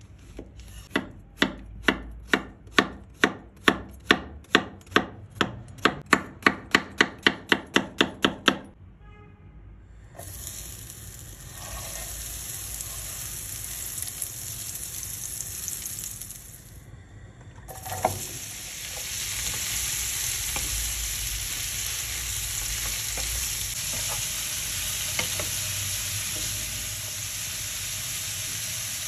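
A run of about two dozen quick knife strokes chopping on a cutting board, getting faster, then food frying with a steady sizzle in a pan. The sizzle breaks off briefly just before a single knock, then comes back louder and steady.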